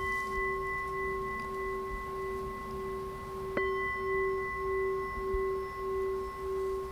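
A meditation bowl bell (singing bowl) struck twice, once right at the start and again about three and a half seconds in. Each strike rings on in a long, steady tone with a gently pulsing low note.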